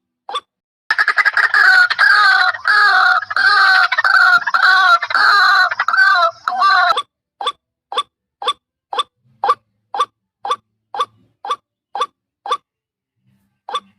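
White-breasted waterhen (ruak-ruak) call: a loud run of rapidly repeated, wavering croaking notes lasting about six seconds, followed by a steady series of short single notes about two a second.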